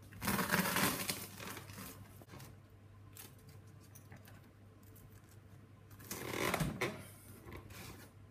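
Crisp toast crunching as a round cutter is pressed through it on a wooden board, with quieter rustling and small taps as the toast circles go into a metal muffin tin. Two louder crunches, about half a second in and again around six seconds in, over a faint steady low hum.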